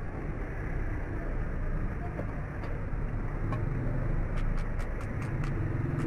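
Steady low machine hum with a rushing noise, and a quick run of light clicks about four and a half seconds in.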